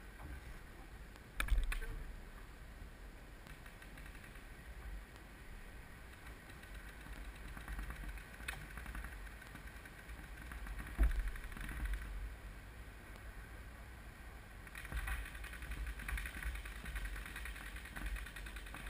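Low outdoor rumble of wind on the camera microphone, broken by a few scattered knocks, the loudest about eleven seconds in, and a noisier stretch near the end.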